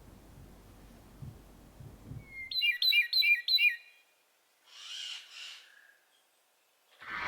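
A bird calling: four quick, sharp chirps in a row, then two softer, breathier notes about a second later.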